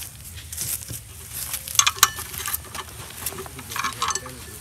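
Metal clinks and scrapes of hand tools and steel parts being handled on an old car, with a few sharp ringing clinks about two seconds in and again near the end.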